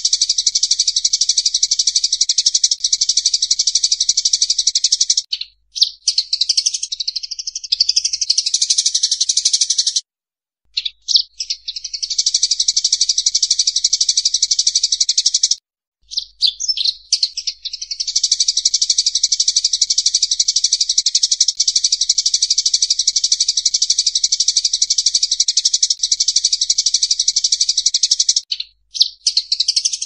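Sparrows calling in a fight: dense, rapid, high-pitched chattering in long unbroken runs, with a few short breaks, the longest about ten and sixteen seconds in.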